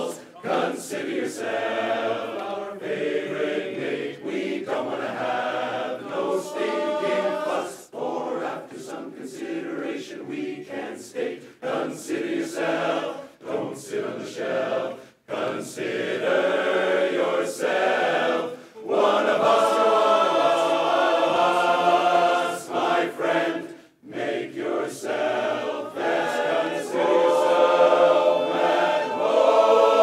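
Men's barbershop chorus singing a cappella in close harmony, in short phrases with brief breaks, then long held chords near the end.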